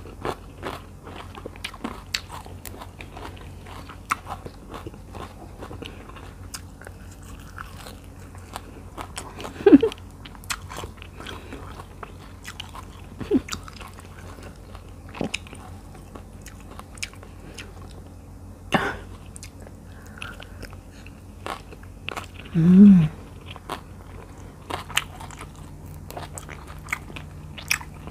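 Close-up chewing of a mouthful of spicy tilapia larb and sticky rice: small wet clicks and crunches throughout, with a couple of short hums from the eater, one about ten seconds in and one about three-quarters of the way through.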